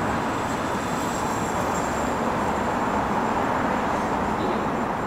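Steady rushing noise of city street traffic, even in level throughout.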